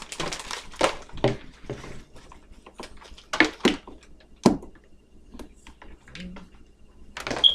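Irregular knocks, taps and clatter of kitchen utensils and containers being handled on a counter, with a few louder knocks about three and a half seconds in and again near the end.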